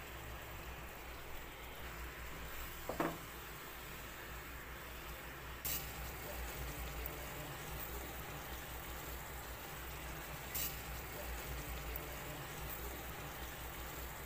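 Sugar syrup with sago pearls bubbling and sizzling in a pan on medium-low heat as it is stirred and cooked down to thicken. A few sharp clicks from the spoon against the pan, about 3, 6 and 10 seconds in.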